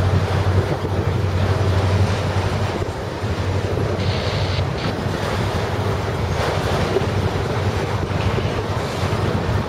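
Strong wind buffeting the microphone over the steady low rumble of a long freight train of autorack cars rolling past.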